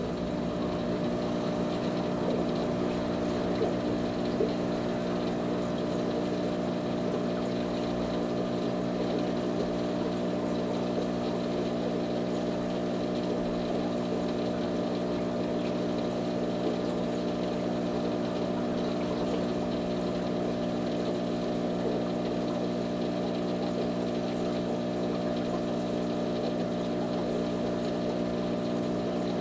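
Aquarium water pump running with a steady, even hum made of several low tones, unchanging throughout.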